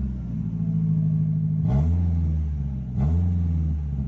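Nissan 240SX S13's KA24DE 2.4-litre inline-four running, blipped twice, about two seconds in and again a second later: each rev rises quickly, holds briefly and drops back. It is running well on a replacement engine wiring harness, which cured a no-crank, no-start fault.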